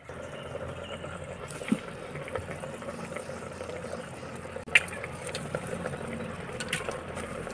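Lumps of charcoal clinking and scraping as they are picked by hand from an earthen pot, with a sharp knock a little before five seconds in, over a steady background hiss.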